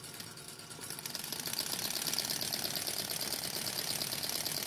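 Small hot-air Stirling engine of a model helicopter, warmed by an alcohol burner, catching and running on its own after being flicked over by hand. It gives a fast, even clicking clatter that grows louder about a second in, then runs steadily.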